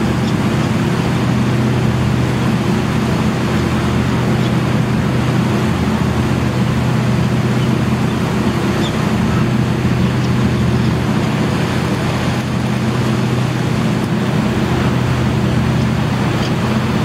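Ferry's engines running steadily under way with a constant low hum, over the even rush of the stern wake and wind.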